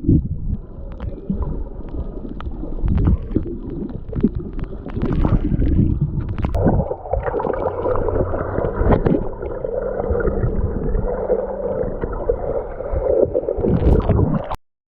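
Muffled water sloshing and gurgling with scattered knocks, as heard through water. A steady low drone joins about six and a half seconds in, and everything cuts off abruptly near the end.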